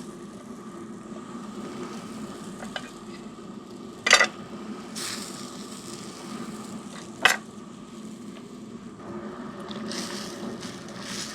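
Steady hiss of a pot of water boiling on the stove, with a low steady hum under it. There are two sharp knocks about four and seven seconds in.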